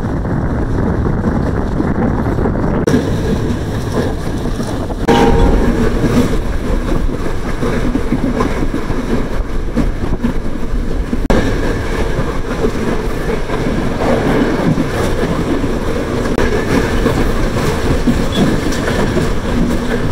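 Passenger train running along the line, heard from an open carriage doorway: a steady, loud noise of wheels on the rails that gets louder about five seconds in.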